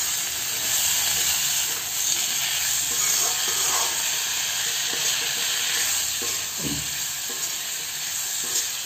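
Cubed potatoes sizzling with onions and ground spices in mustard oil in a metal kadhai over a low gas flame, stirred with a steel slotted spoon that scrapes against the pan.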